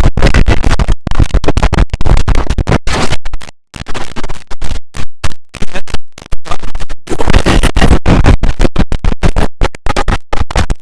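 IBM OS/2 Warp 3 shutdown sound, heavily distorted and loud, chopped into rapid stuttering fragments that sound like scratching, with abrupt cuts to silence several times.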